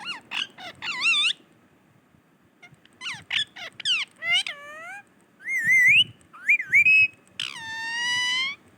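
Pet parrot whistling and calling: a series of short warbling whistles that slide up and down in pitch, in bursts with pauses between, then one long drawn-out call near the end.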